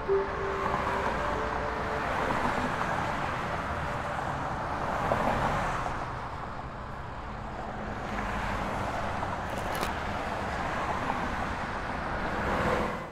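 Road noise of cars passing on a highway, swelling and fading several times, with one passing close and loudest near the end before cutting off suddenly.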